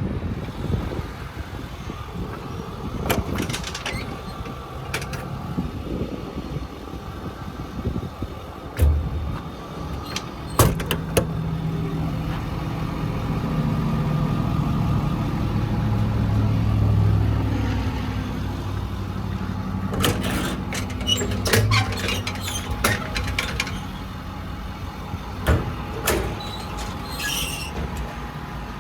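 Truck's diesel engine running, its low hum swelling in the middle and then easing off, with several sharp clicks and clunks of equipment being handled.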